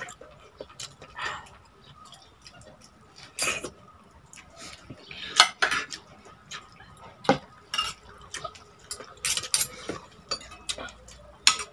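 Dishes and a plastic cup handled at a meal table: scattered clinks and knocks a second or two apart.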